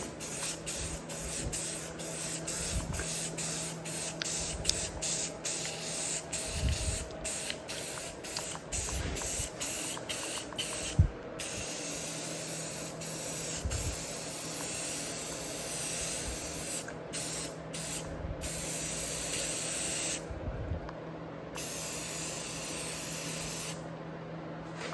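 Aerosol spray paint can spraying: quick short bursts through the first ten seconds or so, then longer steady passes of several seconds each.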